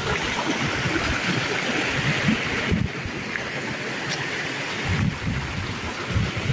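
Rushing mountain stream tumbling over rocks: a steady hiss of running water, with irregular low thumps underneath.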